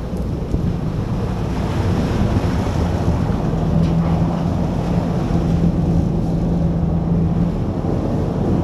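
Sport-fishing boat's engines running with a steady low hum, under wind buffeting the microphone and the rush of the boat's wake on the sea. The engine hum holds a strong steady note from about three and a half seconds in until about seven and a half seconds.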